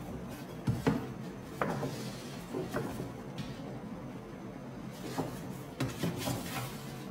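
Stiff paper shopping bag being handled, opened out and lifted: the heavy paper rustles and crinkles, with several sharp crackles, the loudest about a second in.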